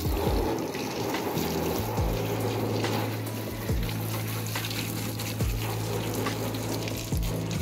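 Water spraying from a pump-fed garden hose onto a car's bonnet and windscreen, a steady hiss of spray spattering on the bodywork, with background music's slow low beat underneath.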